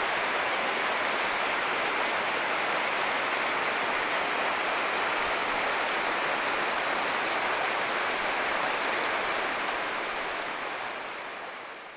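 Steady rush of water from thin waterfalls streaming down a rock cliff, fading out near the end.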